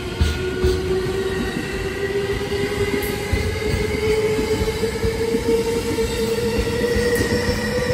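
Electric commuter train pulling out along the platform, its motors giving a steady whine that climbs slowly in pitch as it gathers speed, over the low rumble of the wheels on the rails.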